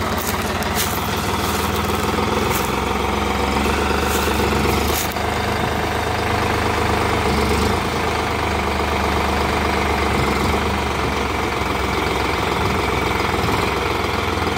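New Holland 3630 Special Edition tractor's three-cylinder diesel engine running steadily, with a few light clicks over it in the first five seconds.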